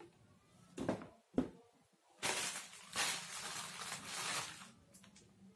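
Hard plastic parts of an electric paint spray gun being handled: two sharp knocks about a second in, then a couple of seconds of uneven rustling.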